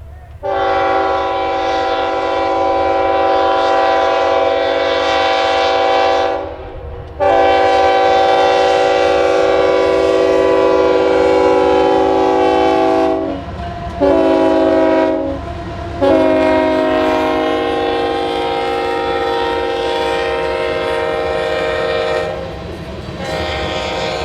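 Union Pacific freight locomotive's multi-chime air horn sounding the grade-crossing signal: two long blasts, a short one, then a long one, over the low rumble of the approaching train.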